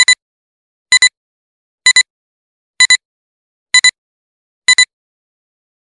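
Countdown intro sound effect: short electronic double beeps, one pair about every second, marking each number of the count.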